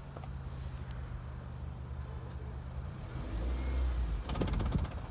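Honda CR-V 2.0 engine running steadily. About three seconds in comes a louder low rumble, and just after it a quick clattering rattle, like springs rattling, from the clutch as the pedal is worked.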